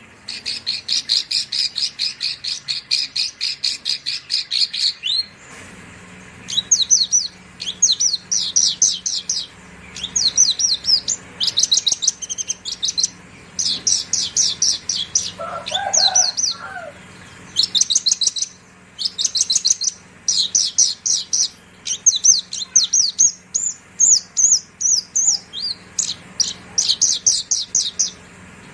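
Javan bush lark (branjangan) singing: rapid trills of high notes repeated many times a second, in phrases of one to a few seconds with short breaks between. A brief, lower call cuts in about halfway through.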